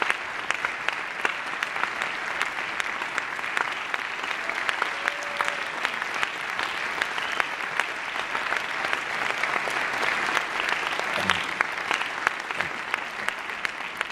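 Audience applauding steadily, a dense patter of many hands clapping that tapers slightly near the end.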